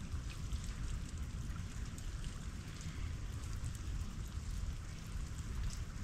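Melting ice and meltwater: a steady patter of many small drips and ticks over a constant low rumble.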